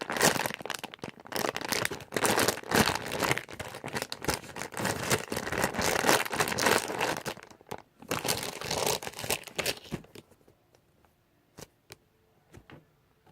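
Crinkling and rustling as a jumbo squishy toy is handled close to the microphone, for about ten seconds. It then goes nearly quiet, with a few separate faint clicks near the end.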